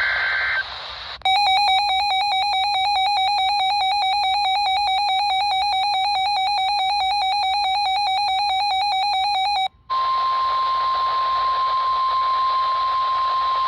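End of a SAME digital header burst, then a weather-alert receiver's own alarm: a fast warbling electronic beep lasting about eight seconds that cuts off suddenly. After a brief gap, NOAA Weather Radio's steady single-pitch warning alarm tone begins, announcing a severe thunderstorm warning.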